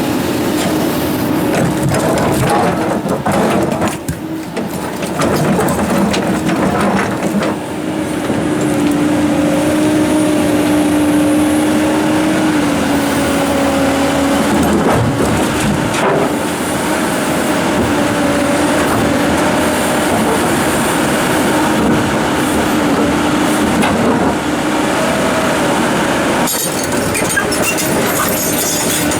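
Komatsu PC290-11 excavator working, its engine and hydraulics running with a steady whine, with occasional knocks and scraping of large rocks.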